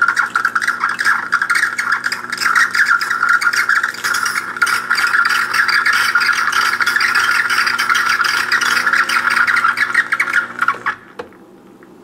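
Gaggia Brera super-automatic espresso machine dispensing hot water through its steam wand into a glass: a steady rushing hiss over a steady hum from the machine. It stops suddenly about eleven seconds in.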